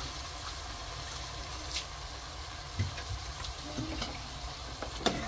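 Rice and vegetables sizzling gently in oil in an aluminium pressure cooker pan over a gas flame, a steady hiss with a low rumble beneath it and a few faint knocks.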